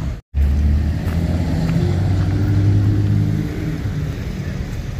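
A motor vehicle engine running with a steady low drone, strongest for about three seconds and then easing off. The sound cuts out for an instant right at the start.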